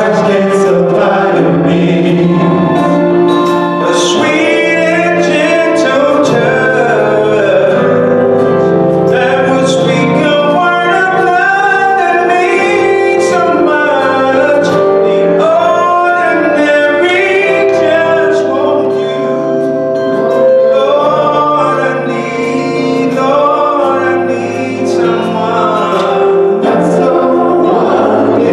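Male gospel vocal group of four singing a slow song in harmony through handheld microphones, with several voices holding notes together.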